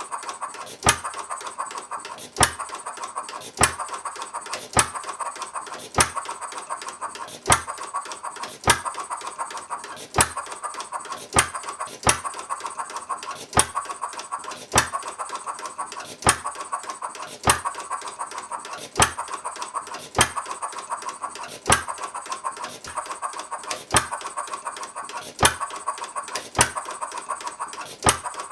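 Galloway 1/3-scale model hit-and-miss engine, a single-cylinder horizontal engine, running. It fires with a sharp bang about every second and a quarter, with lighter mechanical clicking between the firings.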